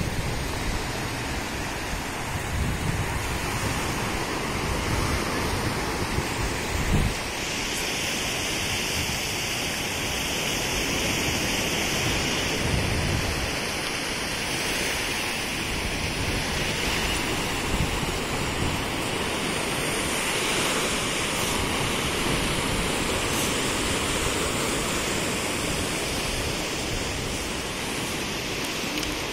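Sea surf washing steadily onto a sandy beach, waves breaking along the shore, with low gusts of wind buffeting the microphone now and then.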